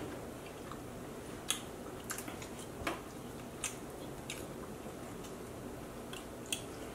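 People chewing and biting into food such as a burger: soft wet mouth clicks and smacks, scattered about once a second, over a steady faint hiss.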